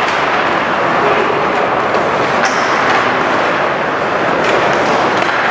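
Steady din of an ice hockey rink during play, with spectators' chatter and a few faint sharp clicks from the ice.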